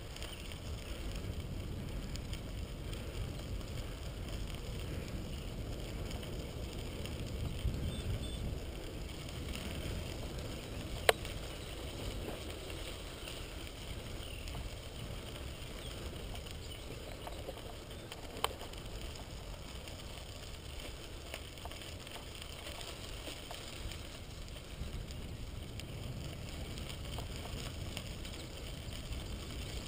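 Bicycle rolling along a crushed-stone trail: a steady low rumble of tyres on gravel and air on the microphone, with two sharp clicks, one about a third of the way in and one a little past the middle.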